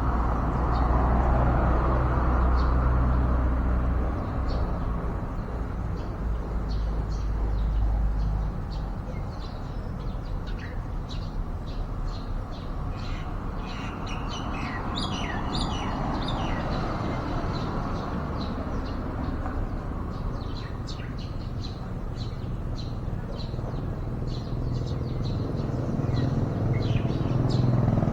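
Small birds chirping: many short, high chirps, thickest in the middle, over a steady low rumble.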